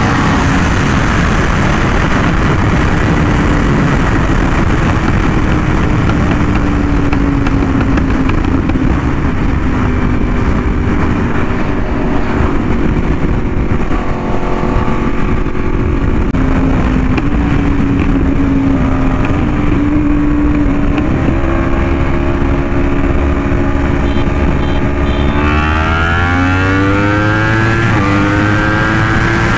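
Yamaha R1M's crossplane inline-four engine through an SC Project exhaust, running at speed with its note slowly sagging, then revving up hard about 25 seconds in as the bike accelerates.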